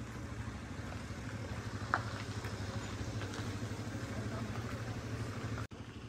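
Low, steady hum of a vehicle engine running, with one faint click about two seconds in.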